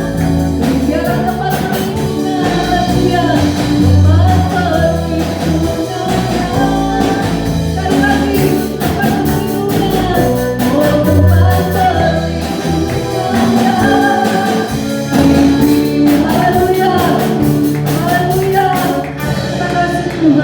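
Christian worship song: a singing voice carrying the melody over a band accompaniment of guitar, bass and drums, at a steady beat.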